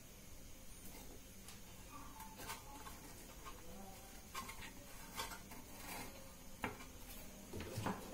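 A handful of faint, scattered clicks and taps as a small step-up converter circuit board and its wires are pressed by hand into the metal housing of an LED floodlight.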